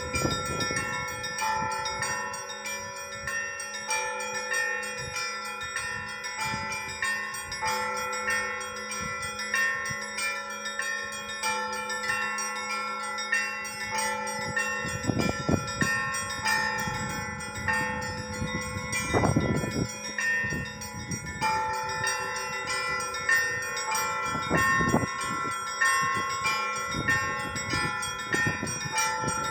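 Church bells ringing: smaller bells struck in a quick, repeating pattern over a steady ring, with a deeper bell struck heavily several times in the second half.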